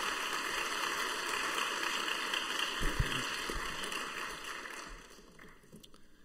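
A large seated audience applauding, the clapping dying away near the end.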